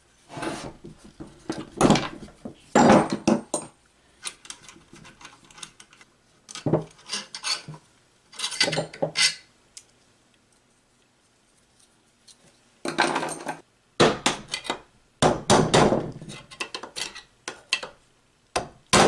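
Metal tools and long steel through-bolts clattering, knocking and scraping on a wooden workbench as a small electric motor is unbolted and pried apart. The sharp knocks come in irregular clusters, with a quiet pause of about three seconds in the middle.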